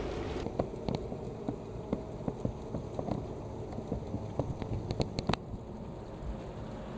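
G-scale model train running on an outdoor track: irregular sharp clicks of wheels over rail joints above a steady low hum, with a few louder clicks about five seconds in.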